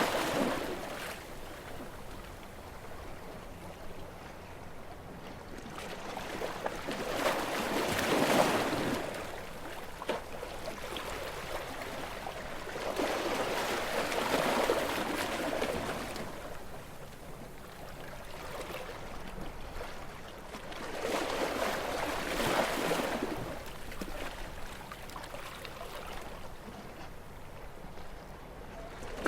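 Gentle waves washing onto a beach: surf noise swells and fades back about every seven seconds.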